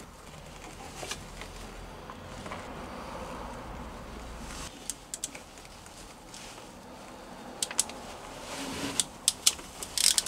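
Hand tools and a cable lug clicking and clinking while the lug is fitted onto a bolt at a van's starter-battery fuse box: a few scattered sharp clicks about halfway through and a quicker cluster of louder clicks near the end.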